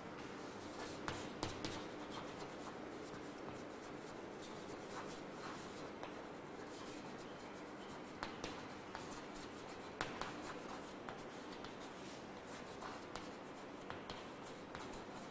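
Chalk writing on a blackboard: faint scratching strokes with scattered light taps as letters are formed, a few sharper taps among them.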